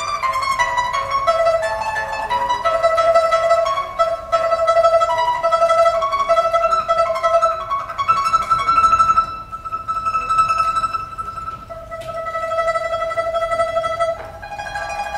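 Solo pipa playing a slow melody in long sustained notes, growing softer from about nine seconds in.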